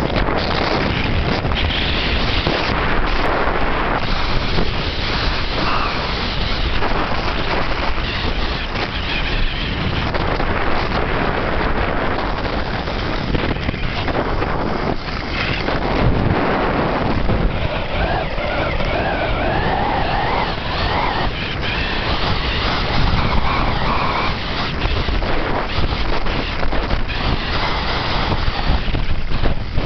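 Wind rushing over a handheld compact camera's microphone on a fast downhill ski run, mixed with the hiss and scrape of skis on hard groomed snow. Loud and unbroken.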